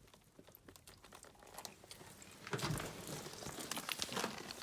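Faint crinkling and crunching rustle of close handling, a few scattered clicks at first, then denser and louder from about halfway.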